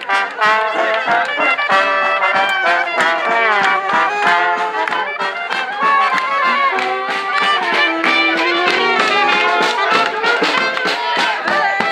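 Brass marching band playing a tune: trombones and a sousaphone over the steady beat of a bass drum.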